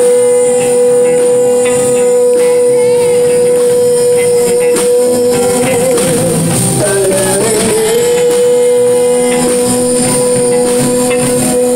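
Male singer fronting a live band of electric guitar, bass guitar, keyboard and drum kit, holding a long sung note that breaks into a wavering run of notes in the middle before settling back.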